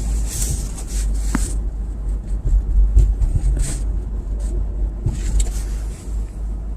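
2010 Subaru Impreza driving at about 25 mph, heard from inside the cabin: a steady low rumble of its replacement 2.5-litre engine and road noise, the engine running well.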